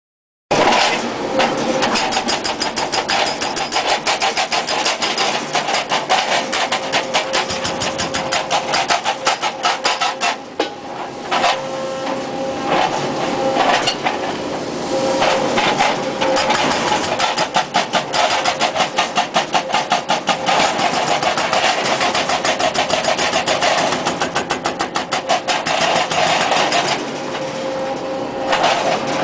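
Hydraulic breaker of a Brokk 180 demolition machine hammering rapidly and steadily over a steady machine hum, pausing briefly about ten seconds in.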